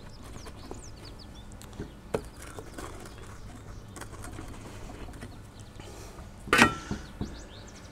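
Faint crunching of a crisp pizza crust as a stainless rocking pizza cutter is pressed through it onto a wooden board, with birds chirping faintly behind. A short, louder knock comes about six and a half seconds in.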